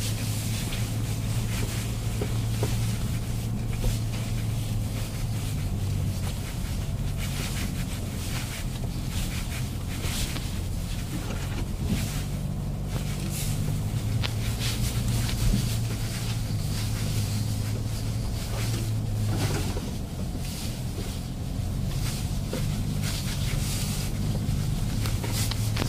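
Inside the cabin of a Mercedes-Benz GLA 220d, its four-cylinder diesel engine drones steadily at low speed on a rough dirt track. Scattered knocks and clicks come from the tyres and suspension over the uneven ground.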